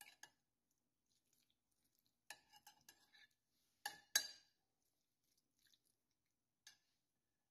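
Spoon clinking and scraping against a baking dish while meat sauce is spread over spaghetti: scattered soft clicks, a short run of them a little after two seconds, and two sharper knocks about four seconds in, with near silence between.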